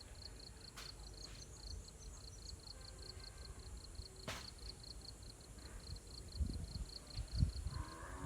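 Insects chirping in a steady high pulse, about five or six times a second, with a few low thumps in the second half. A cow starts to moo right at the end.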